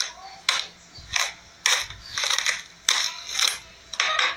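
Slime being squished and pressed, crackling and clicking in short sharp bursts about one and a half times a second.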